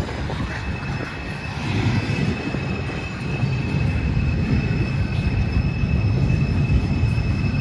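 Norfolk Southern train rolling past with a heavy, continuous rumble of wheels and cars. A steady high-pitched squeal sits over it from about half a second in.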